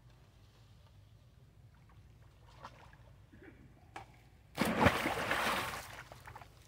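A long-tailed macaque plunging into a pool of water: one loud splash about four and a half seconds in, followed by about a second and a half of churning water.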